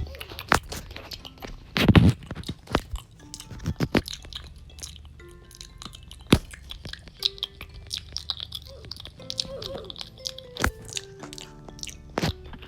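ASMR mouth sounds made close to the microphone: a string of sharp, wet clicks and smacks at an uneven pace, the loudest cluster about two seconds in, over soft background music of held notes.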